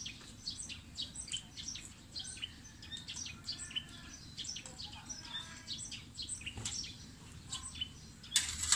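Small birds chirping repeatedly in quick, high notes, with a brief sharp clatter near the end.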